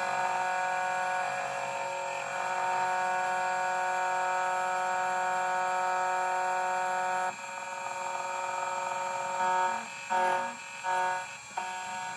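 CNC key cutting machine running its cutter to cut a Hyundai HY22 key blank: a steady whine made of several tones. About seven seconds in it drops away, then comes back in a few short bursts near the end.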